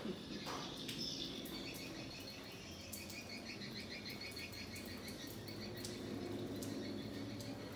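Outdoor ambience of insects chirping: rapid, evenly repeated high chirps over a faint low hum, with a few faint clicks.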